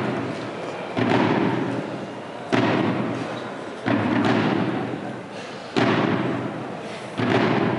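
Brass-and-drum band playing, with five heavy drum strikes about one every second and a half, each ringing out and fading before the next.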